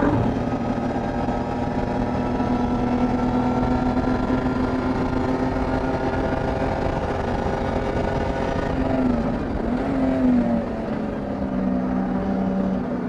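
BMW 325is race car's 2.5-litre straight-six running hard at high revs, its pitch climbing slowly. About nine to ten seconds in the revs dip and flare twice, then the engine runs on at a lower, steady pitch.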